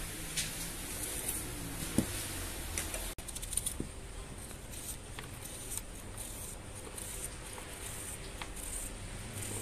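Small knife peeling and then cutting a raw onion in the hand: scattered crisp snips and ticks of the blade through the onion, with a brief break about three seconds in.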